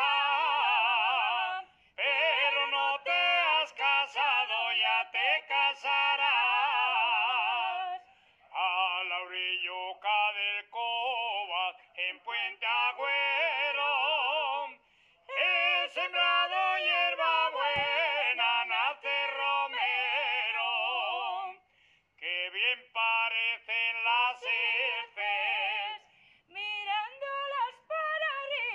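A woman singing a Spanish song unaccompanied, with a wide vibrato, in long held phrases broken by short pauses.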